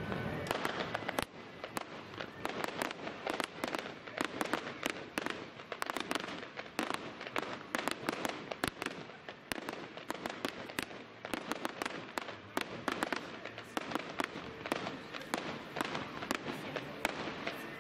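Fireworks display: a continuous rapid run of bangs and crackles as shells burst overhead, many reports a second with no break.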